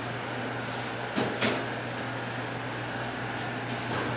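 Room tone: a steady low hum, with two sharp knocks a little over a second in and a few light clicks near the end.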